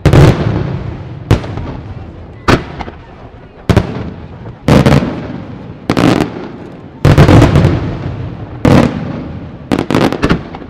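Aerial firework shells bursting one after another, about one sharp bang every second or so, each trailing off in a rumbling echo. Two bangs come close together near the end.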